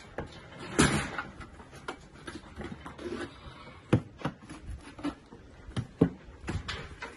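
A steel plastering trowel spreading mortar onto metal lath, with scraping and irregular sharp clicks and knocks.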